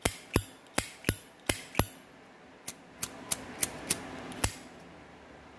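Zippo lighter lid being flipped open and snapped shut over and over: sharp metallic clicks about three a second, a short pause about two seconds in, then a second run of clicks that stops about four and a half seconds in.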